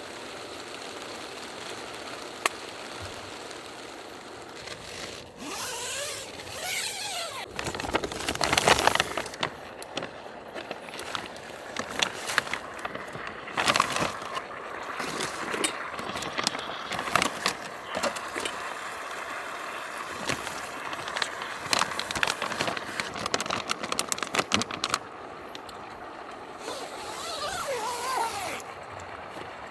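Self-heating meal pack fizzing and crackling as its heating reaction gets going, under irregular clicks and rustling scrapes from handling its plastic bag, louder in bursts several times.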